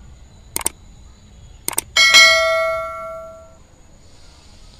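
Subscribe-button animation sound effect: two quick double clicks, then a bright bell chime that rings and fades over about a second and a half.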